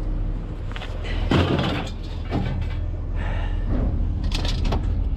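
Scrap metal scraping and clanking as pieces are pulled loose in a truck bed, in several rough bursts, over a steady low hum.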